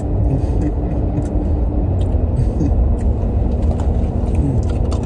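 Steady low rumble of road and engine noise inside a car's cabin while driving.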